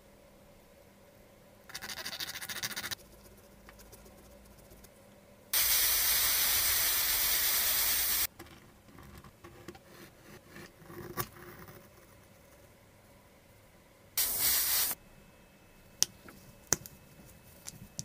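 An aerosol spray can hissing in one long burst of about three seconds, then a short burst of under a second later on. A brief rasping noise comes before them, and a few sharp clicks near the end.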